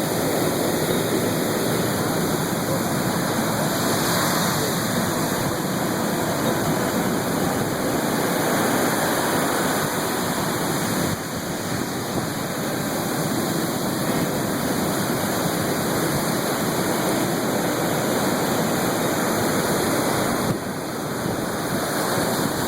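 Ocean surf making a steady rushing noise that dips briefly twice.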